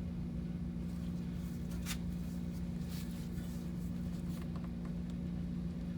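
A steady low hum with a few faint clicks and rustles, about two and three seconds in.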